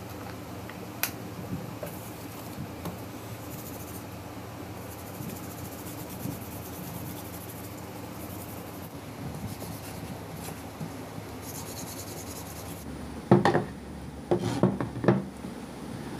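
Soft rubbing and light clinks as a hand handles a wet carved stone piece in a steel tray, over a steady low hum. Near the end come several loud, sharp knocks as a stone slab is handled on a wooden table.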